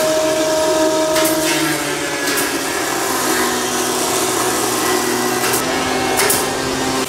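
Steady workshop machinery noise: electric motors humming at a few shifting pitches, with several sharp knocks.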